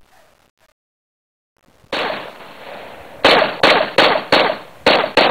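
Semi-automatic gunfire. After a short stretch of near silence there is a single shot with a long echoing tail, then six rapid shots about a third of a second apart.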